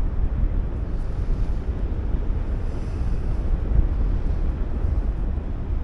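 Steady wind rushing over the microphone as air streams past in paraglider flight, a deep, even buffeting.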